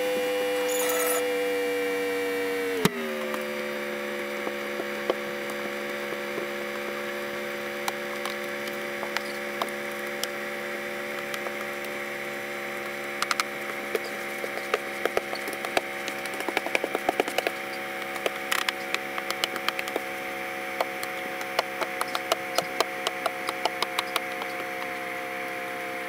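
Truck engine idling steadily; its pitch steps down slightly about three seconds in. From about halfway on, scattered light clicks and ticks sound over the hum.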